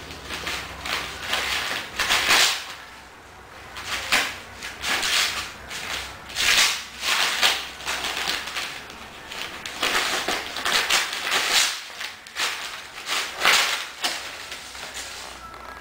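Border collie puppy tearing and shaking glossy magazine and newspaper pages with its teeth and paws. The paper crackles and rips in irregular bursts, one every second or so.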